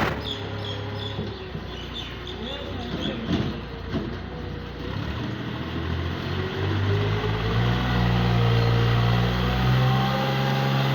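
A vehicle engine running steadily with a low hum, growing louder about halfway through.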